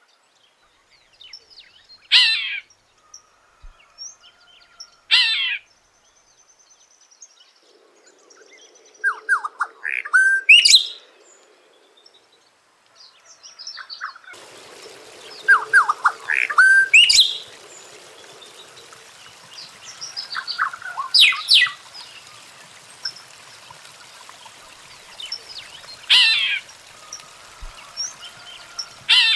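Golden-winged cacique singing: separate loud calls every few seconds, some sharp falling notes and some quick clusters of lower whistled notes. A faint steady hiss lies under the calls in the second half.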